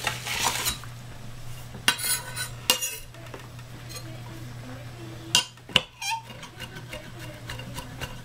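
Chef's knife chopping fresh rosemary on a cutting board: a few sharp, irregularly spaced knocks of the blade on the board, with a brief scrape near the start.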